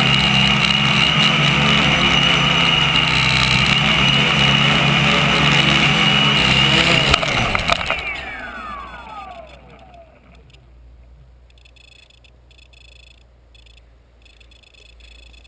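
A tricopter's three electric motors and propellers running loud and steady in flight, heard from the on-board camera. About seven seconds in, the craft lands and the motors spin down with a falling whine that fades out over a couple of seconds.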